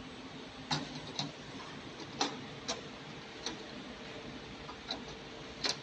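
Sharp little clicks and taps, about seven at irregular intervals, as small printed circuit boards are set and pressed by hand into the slots of a fixture tray, over a steady low hum.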